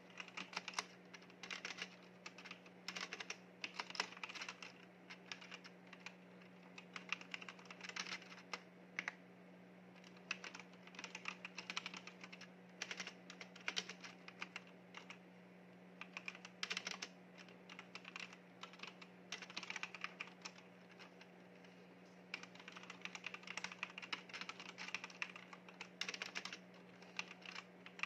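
Typing on a Leaven mechanical keyboard: rapid, irregular key clacks in bursts with short pauses between them, over a steady low hum.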